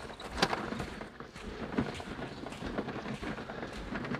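Footsteps on wet tidal-flat sand, a soft crunching step about every second, with wind rumbling on the microphone.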